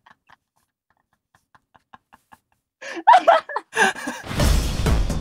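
Faint, stifled laughter in short breaths that breaks into a loud burst of two men's laughter about three seconds in. Electronic dance music with a steady beat starts near the end.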